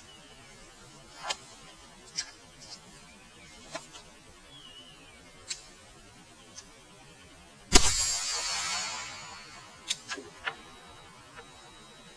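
A single sharp shot from a Ruger 22/45 Mark III pistol firing .22 LR, about two-thirds of the way in, with a hiss that trails off over a second or so. Faint clicks come before and after it.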